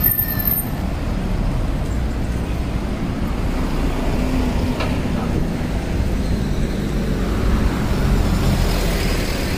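Street traffic: a steady low rumble of car engines running and passing, a little louder near the end.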